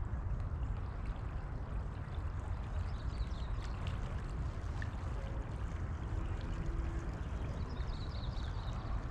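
Creek water running steadily over a shallow riffle, with a heavy low rumble underneath.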